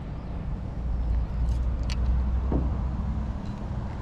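Steady low rumble of wind on the microphone, swelling for a couple of seconds in the middle, with a few faint light clicks.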